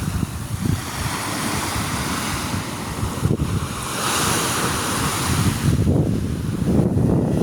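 Sea waves washing onto the shore, with wind buffeting the microphone in gusts.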